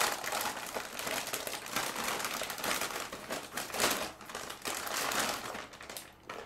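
Plastic packaging crinkling and rustling in irregular bursts as a graphics card is unwrapped by hand, dying away near the end.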